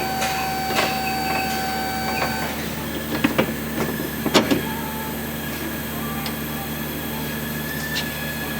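A few sharp metallic knocks and clinks as a replacement rear shock absorber is worked down onto its lower mount, bunched about three to four and a half seconds in, over a steady workshop hum.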